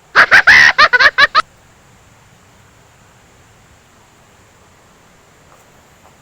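A short, very loud sound effect: a quick run of about eight high, wavering pitched pulses over about a second and a half, then only a faint steady hiss.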